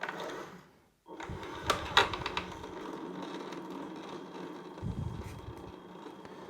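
Bambu Lab AMS 2 Pro filament unit running, its feed motor driving filament through the newly fitted internal hub, with a few sharp clicks about two seconds in. The sound drops out briefly about a second in.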